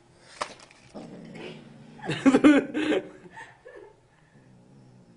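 A kitten growling and yowling through a mouthful of paper banknotes, loudest for about a second in the middle. It is a possessive warning: the kitten is guarding the money and will not give it up.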